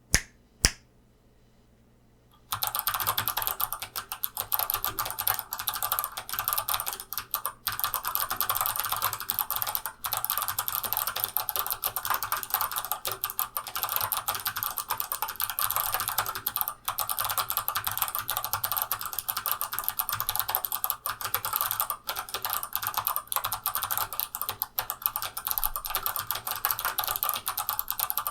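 Fast, continuous typing on a mechanical keyboard with clicky Kailh Box Navy switches and SA keycaps in a hollow, unfilled 3D-printed case. A single key click comes right at the start, and the steady typing begins about two and a half seconds in.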